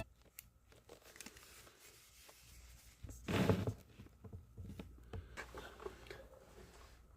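Faint handling noises: scattered light clicks and small knocks, with one brief, louder rustle about three seconds in.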